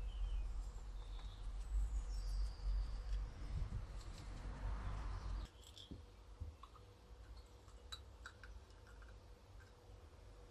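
Small metal carburettor parts being handled and clicking as the carburettor is taken apart, over a low rumble that stops about five and a half seconds in. A few faint, short, high chirps come near the start.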